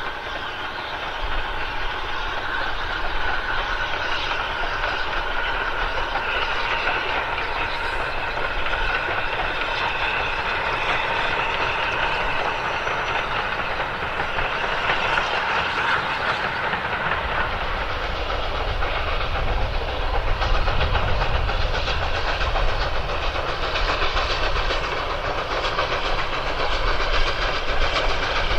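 Steam train running along the line: a saddle tank steam locomotive hauling coaches, with a steady mix of wheels on rails and hiss. A deeper rumble comes in about halfway through and grows louder near the end.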